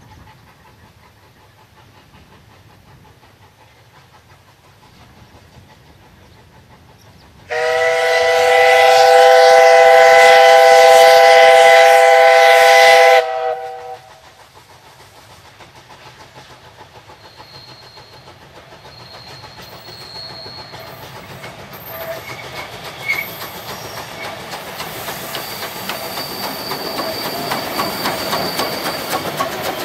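A DSB class F steam tank locomotive blows its steam whistle in one long chord-like blast of several tones, starting and stopping abruptly. Then the locomotive and its train approach and pass close by, the running and clatter of wheels on rail growing steadily louder.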